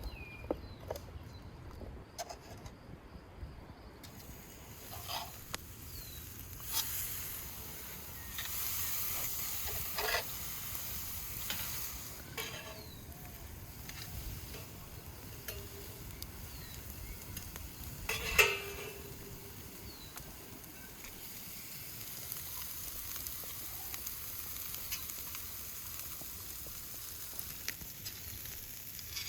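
Burger-sized pieces of meat sizzling on hot wood coals, with a steady hiss that sets in a few seconds in. A few sharp pops and clicks break through it, the loudest about 18 seconds in.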